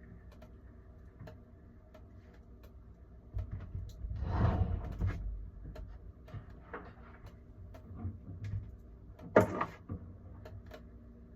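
Handling knocks and clatter over a steady low hum: a rattling scrape a little after three seconds in, the loudest part, and a single sharp clack about nine seconds in, with small clicks between.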